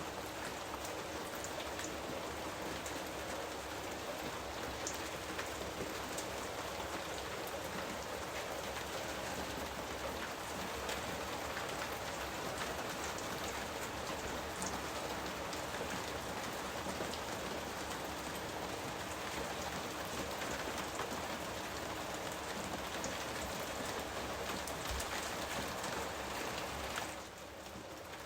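Steady rain falling, an even hiss flecked with the ticks of single drops. Near the end it turns softer and duller.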